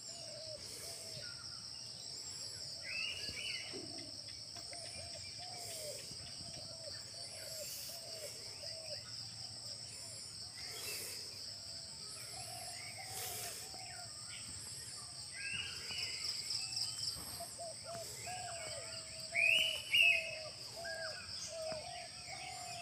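Morning birdsong: several birds chirping and calling over a steady, high-pitched insect drone. Two louder calls come near the end.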